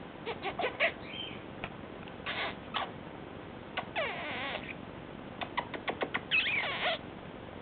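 A pet bird calling: a string of sharp clicks and short chirps, with two longer wavering calls that bend up and down in pitch, one about four seconds in and one near the end.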